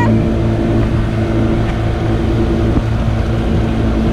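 Small fishing boat's motor running steadily at speed, with water rushing along the hull.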